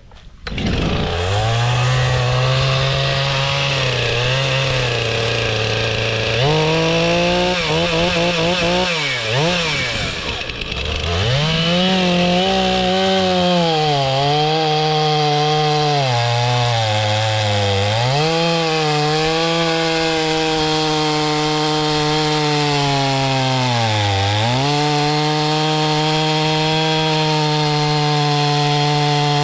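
Large gasoline two-stroke chainsaw with a long bar running at high revs while cutting through tree trunks. It starts within the first second and its pitch dips again and again as the chain loads up in the wood, most deeply about nine to eleven seconds in and again near twenty-four seconds.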